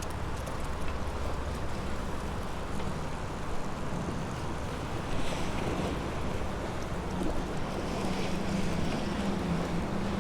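Steady rushing of wind and lake waves washing against a concrete shoreline, swelling a little about halfway through and again near the end.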